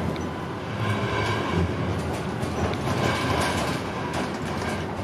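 Tram running along street track, heard from inside the driver's cab: a steady low rumble with scattered clicks and rattles.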